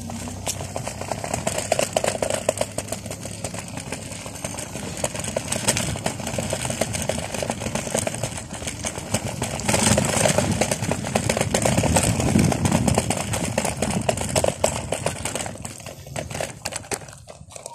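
Rolling noise of an electric scooter ridden over asphalt, with continual rattling and clicking over the bumps. It grows louder about ten seconds in and dies away at the very end.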